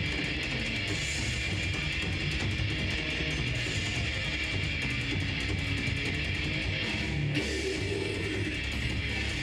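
Death metal band playing live: distorted electric guitars over bass and drums in a dense, steady wall of sound.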